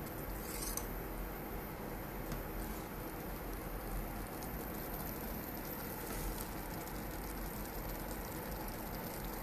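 Vermicelli kesari in melted sugar syrup bubbling steadily in a kadai as it cooks down. A metal ladle knocks the pan once, about half a second in.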